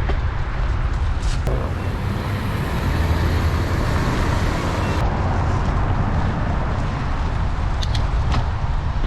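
Steady rushing noise of riding a bicycle: wind buffeting the microphone over road and tyre noise, with a few brief clicks, one just over a second in and a couple near the end.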